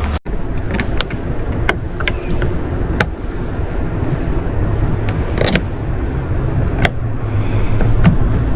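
Scattered light clicks and taps of tools and parts being handled during the install, over a steady low rumble.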